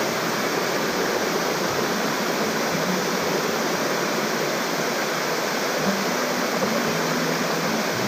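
Steady rushing of a small waterfall cascading down rock steps into a shallow pool.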